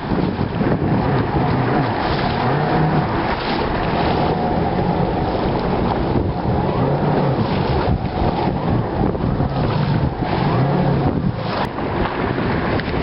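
Personal watercraft (jet ski) engine running at speed over choppy water, its note wavering up and down, with heavy wind buffeting on the microphone and water rushing past.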